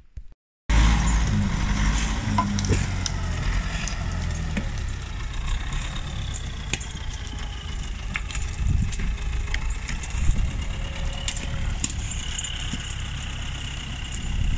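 LKT forestry skidder's diesel engine running under load as it drags a bundle of logs, with scattered knocks from the machine and a faint high whine that rises and falls. The sound starts abruptly about half a second in, after a brief gap of silence.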